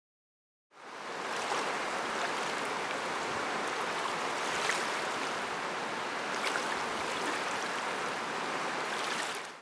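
Rushing river water, a steady sound of fast current over rocks with a few brief splashes. It fades in about a second in and cuts off abruptly at the end.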